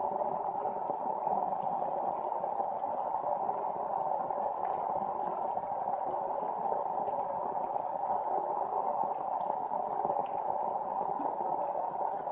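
Rainwater splashing and running in a flooded rice field: a steady, even rush of water with faint scattered drop-like ticks.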